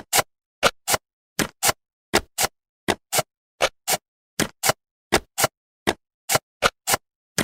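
Jigsaw-puzzle sound effect of pieces snapping into place: a steady run of short, sharp clicks, mostly in pairs about a quarter second apart, each pair coming roughly every three-quarters of a second.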